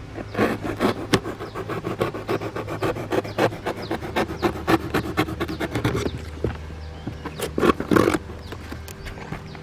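Rapid, irregular scraping and knocking of wood being worked by hand, with a steady low hum underneath; the scraping is loudest around half a second in and again near the end.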